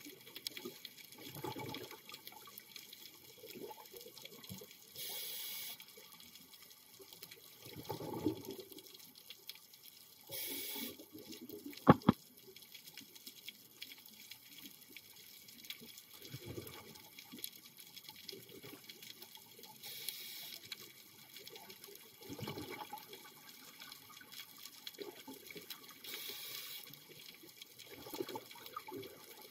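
Scuba diver breathing through a regulator underwater: a short hiss on each inhalation and a low burble of exhaled bubbles, repeating every five to six seconds. One sharp click about twelve seconds in is the loudest sound.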